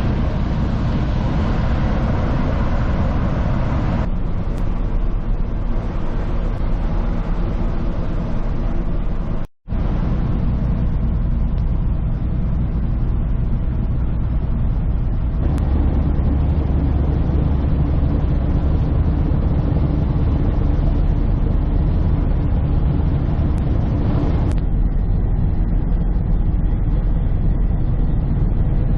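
Steady engine rumble with a low hum, in several edited segments that change abruptly, with a brief dropout about ten seconds in.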